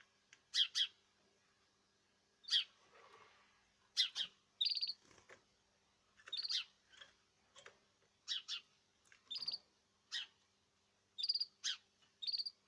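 Small cage birds chirping: short, sharp high calls, often in quick pairs or triplets, about once a second, a few of them held as a brief steady whistled note.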